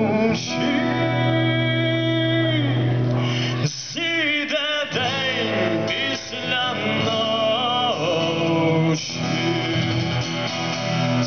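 A man singing live to his own acoustic guitar, amplified through a stage PA, holding a long note for the first few seconds before the melody moves on.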